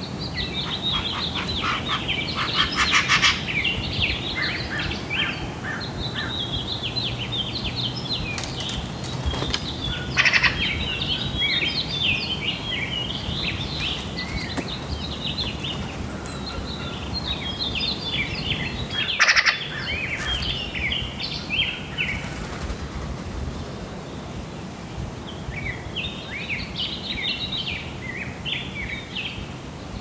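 Songbird singing: a rapid, jumbled run of high chirps and warbles that goes on almost without a break, thinning out for a few seconds before resuming near the end. A few short sharp knocks cut through it, the loudest about two thirds of the way in.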